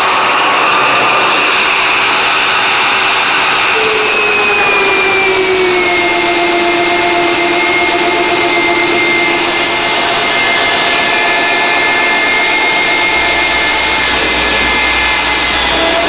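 Corded electric drill driving a homemade wooden wire-stripping machine, running steadily and loud while insulated wire is fed through its rollers. Its whine slides slightly lower in pitch between about four and six seconds in, then holds steady.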